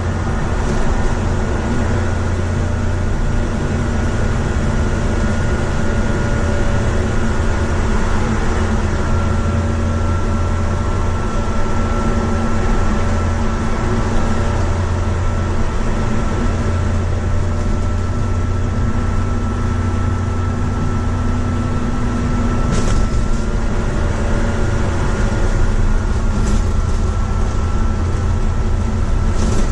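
Inside a moving double-decker bus: steady engine hum and road noise with a thin steady whine above it. The low engine note shifts about two-thirds of the way through, and a few brief rattles come near the end.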